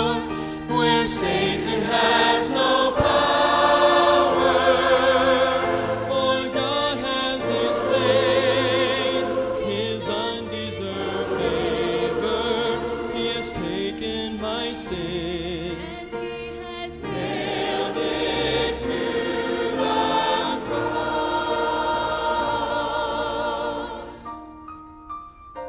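Church choir singing a gospel song with instrumental accompaniment. The music grows quieter in the last couple of seconds.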